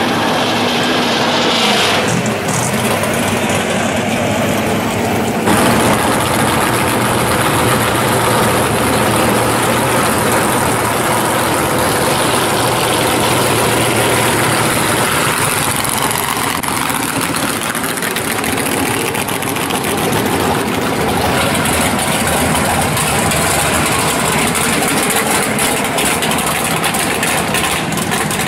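Engines of hot rods and drag cars running as the cars roll slowly past one after another. The engine sound changes abruptly a couple of times early on as one car gives way to the next.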